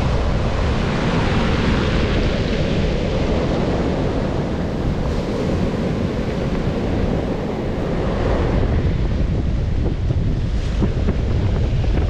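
Sea surf breaking and washing up over a pebble beach, with wind buffeting the microphone.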